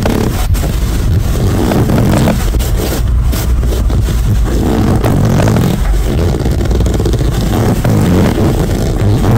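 Hand fart noises: air forced out between cupped hands in a run of loud, low, buzzing blasts with a few brief breaks.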